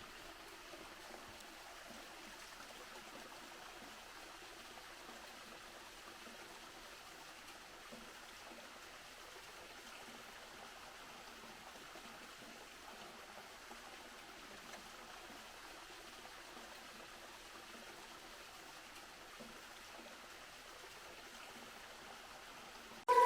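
Faint, steady rushing of a mountain stream's flowing water.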